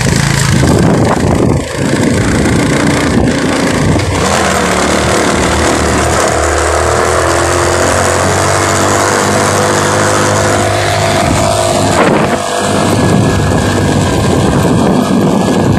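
Motorcycle engine running steadily while the bike is ridden along a road, with small shifts in pitch as the throttle changes.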